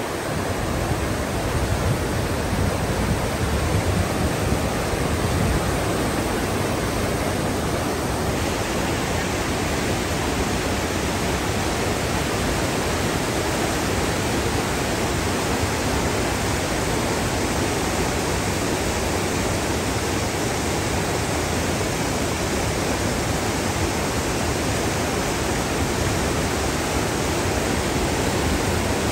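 Whitewater mountain creek rushing and cascading over boulders and logs: a steady, loud rush of water. Its character shifts slightly about eight seconds in.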